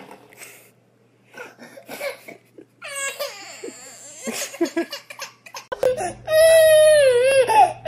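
A baby crying loudly in long, wavering wails, starting about six seconds in. Before that there are only short, quieter vocal sounds.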